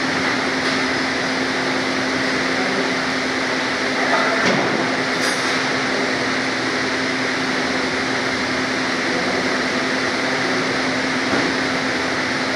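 Steady mechanical hum and hiss with a constant low tone, like a running fan or machine, and a faint click about four and a half seconds in.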